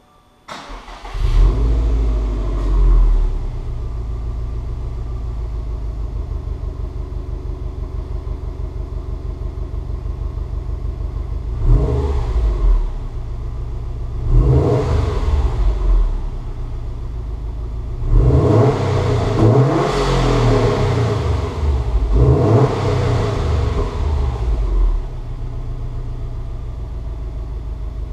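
2015 Subaru STI's turbocharged 2.5-litre flat-four starting, flaring up and settling to a steady idle, then revved four times with the throttle blipped, the longest rev a few seconds long, heard through its stock exhaust.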